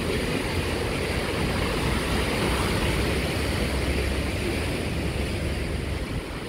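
Surf breaking and washing against shoreline rocks, with wind rumbling on the microphone: a steady, even wash of noise.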